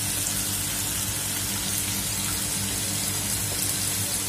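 Chopped onion sizzling in hot oil in a nonstick kadhai, a steady hiss, with a low steady hum beneath.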